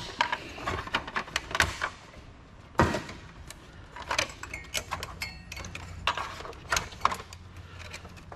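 Clicks, knocks and metal-and-plastic rattles as the power supply is worked loose and lifted out of a Dell clamshell PC case, with one sharper knock about three seconds in.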